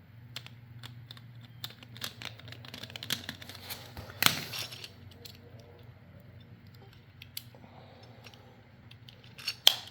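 Small plastic parts of a GFCI plug housing being handled and fitted together: scattered light clicks and rattles, with a sharper click about four seconds in and another near the end.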